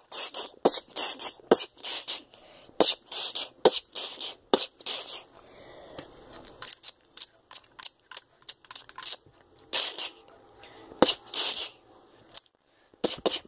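Mouth-made sound effects of silenced shotgun fire: a run of short breathy 'pshh' hisses, a few a second with a brief lull in the middle, and sharp clicks between some of them.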